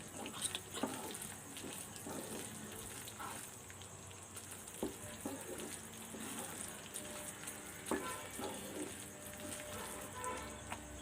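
Mysore pak batter of gram flour, sugar and oil sizzling in a pan while a spoon stirs and scrapes it, with occasional clicks of the spoon against the pan. The batter has reached its finished consistency, ready to come off the heat.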